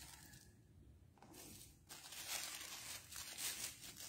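Rustling and crinkling from something handled close to the microphone. It comes in two stretches starting about a second in, and the second is longer and louder.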